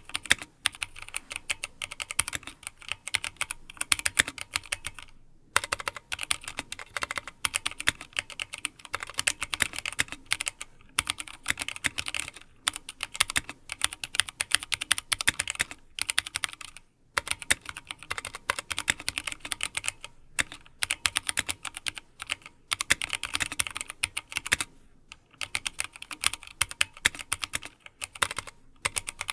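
Continuous fast typing on a Drop ALT High-Profile mechanical keyboard with Kailh Speed Silver linear switches and doubleshot PBT keycaps: rapid key clacks in bursts, with brief pauses between runs.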